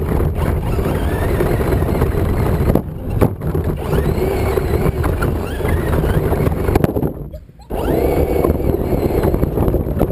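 Traxxas Slash RC truck driving across long grass, its motor and drivetrain whine rising and falling with the throttle over a dense low rumble. The sound drops away briefly about seven seconds in, then picks up again.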